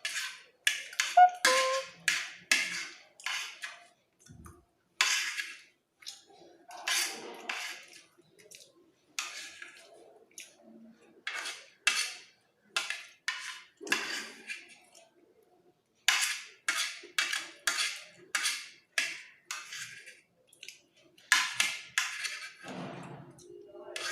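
Spoon scraping and clinking against a plate in quick runs of short strokes, with pauses between runs, as the last of the fried rice is gathered up.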